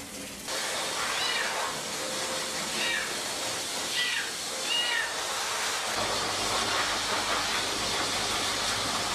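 Steady hiss of a pet-wash water spray, with several short meows from a cat being bathed during the first five seconds. A low hum joins about six seconds in.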